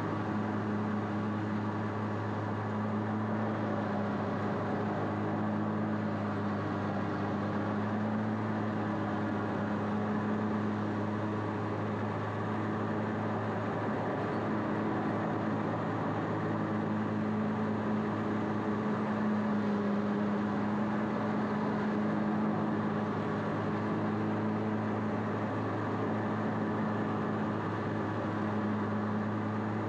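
Bad Boy ZT Elite zero-turn mower's engine running steadily under mowing, a constant drone.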